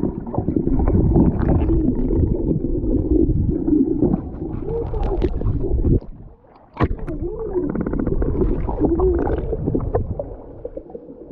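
Muffled underwater sound of moving water: a low rumble and gurgle with faint warbling tones. It cuts out briefly about six seconds in, then returns with a sharp knock and fades near the end.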